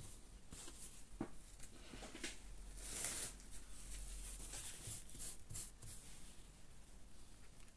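Faint rustling and scratching of a paintbrush being wiped off on a paper towel to dry-brush it, with scattered light clicks and one louder rustle about three seconds in.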